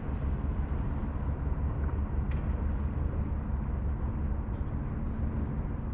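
Steady low machinery rumble with a constant hum, and a couple of faint clicks.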